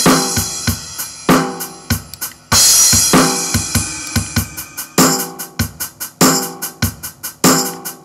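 The NUX Stageman AC50 acoustic amp's built-in drum machine playing programmed drum-kit patterns of kick, snare, hi-hat and cymbal. The pattern breaks off and a different one starts every couple of seconds as the footswitch steps through the rhythm presets.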